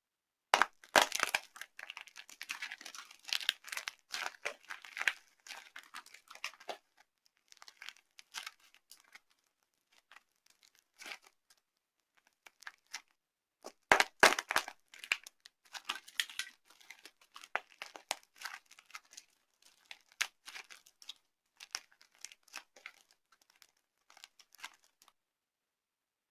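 Dry, brittle soap being crushed, crunching and crackling in a loud burst that thins into scattered crackles; a second crush about halfway through goes the same way.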